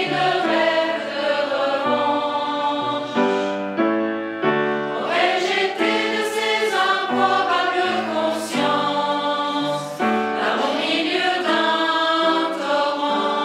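Mixed choir of men and women singing together in sustained chords, accompanied on a grand piano.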